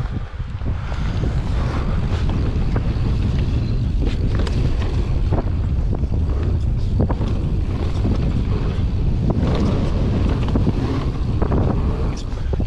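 Wind buffeting the microphone over the rumble of mountain bike tyres rolling fast on a dry dirt trail, with scattered sharp clacks and rattles from the bike as it goes over bumps and jumps.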